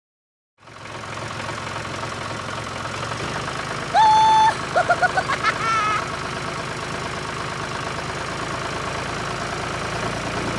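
Vehicle engine running steadily at idle, starting about half a second in, with a loud horn honk about four seconds in and a quick series of short horn toots right after.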